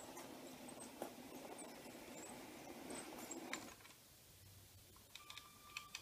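LEGO model locomotive of the Union Pacific Big Boy running on plastic LEGO track: a faint motor whir with light clicking of the wheels over the track, which drops away about two-thirds of the way in as the train comes to a stop. A few light clicks follow near the end.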